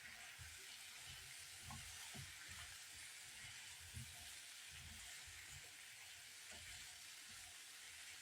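Vegetables sautéing in a pan: a faint, steady sizzle.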